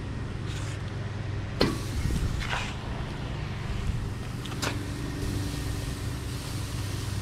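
Raw steaks being laid on the hot grate of a charcoal-fired Weber Little Smokey grill: three sharp clicks as they go down, then a steady sizzling hiss once the first one hits. A steady low hum runs underneath.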